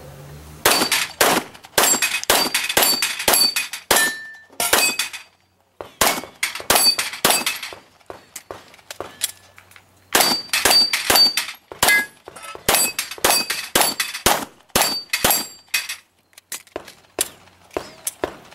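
Rapid 9mm pistol fire from a Glock 34 in quick strings broken by short pauses, many shots followed by the brief metallic ring of steel plates being hit.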